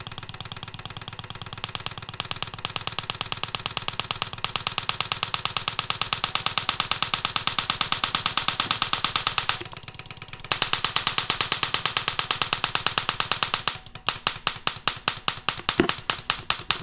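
High-voltage sparks from an ignition coil snapping across a small gap between two wire ends: a rapid, evenly spaced train of cracks that grows louder as the voltage is turned up. It breaks off for about a second midway and comes back slower, a few snaps a second, near the end.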